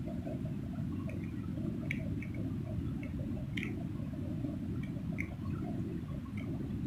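River water gurgling against the rocks: a steady low rush with small drips and splashes scattered through it.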